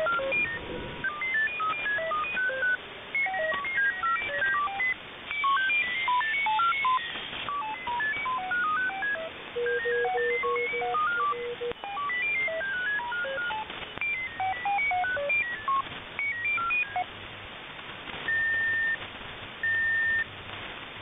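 Frequency-hopping MFSK digital radio signal heard through a shortwave receiver: short single beeps jump to random pitches several times a second over a hiss of band noise. Near the end a higher steady tone sounds three times, about half a second each.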